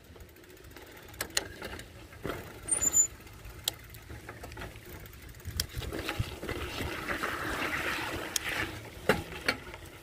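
Motorcycle on a rough, rocky track: a low rumble with scattered knocks and clatter, and a louder rushing noise from about six to nine seconds in.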